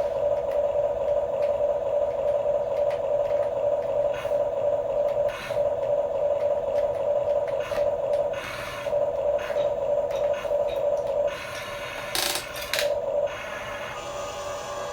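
Small electric motors and plastic gearing of a Huina radio-controlled construction toy whining steadily, with brief pauses and clicks as the controls are let off and worked again; near the end the whine drops and changes pitch.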